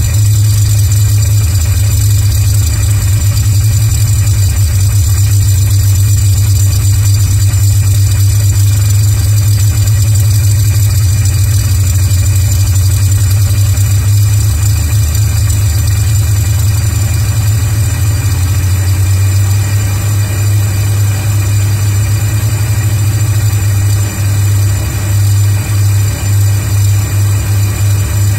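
Bristol Hercules 14-cylinder twin-row, sleeve-valve, air-cooled radial aircraft engine running steadily with its propeller turning, a deep even drone. About four seconds before the end the sound starts to pulse, throbbing a little under twice a second.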